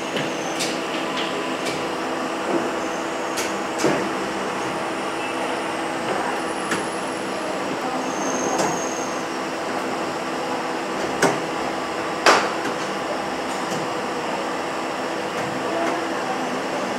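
Vertical injection moulding machine running with a steady hum of several level tones. Sharp metal clicks and knocks come every few seconds as cables are handled and set into its mould block.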